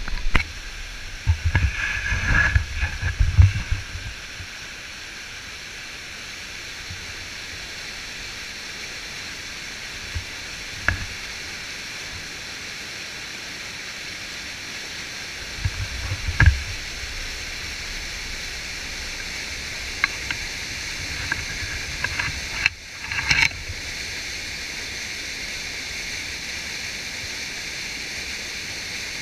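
Whitewater rapids of a waterfall rushing steadily, with a few low thumps on the microphone in the first few seconds and again around 16 seconds in.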